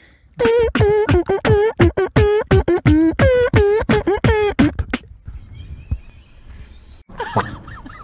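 Recorded beatboxing by French beatboxers, played back: a fast, even run of vocal beats, about four a second, each a low kick with a pitched, bending vocal tone on top. It breaks off about five seconds in, and looser beats come back near the end.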